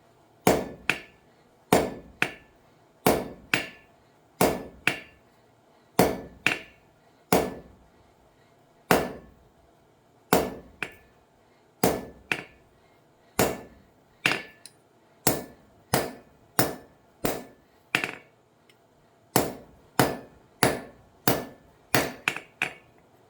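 Hand hammer blows forging titanium on an anvil: a steady series of sharp metallic strikes, about one to two a second and often in pairs, each with a short ring.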